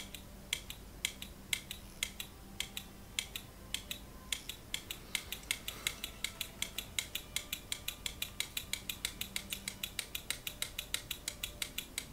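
1960s VISOMAT BWS2 photocell exposure timer's electromechanical stepping mechanism clicking, speeding up from about two to about five clicks a second. The click rate follows the light reaching its photocell: more light, faster clicks.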